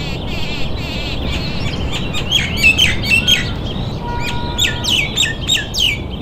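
Several birds chirping and calling: a warbling trill at first, then a run of quick, sharp chirps that slide down in pitch from about two seconds in, over a low steady rumble.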